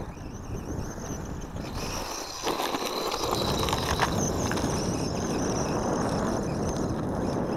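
Wind rumbling on the microphone while an RC buggy drives over gravel. From about two and a half seconds in, the sound of the car on the gravel grows louder, with a faint steady high motor whine.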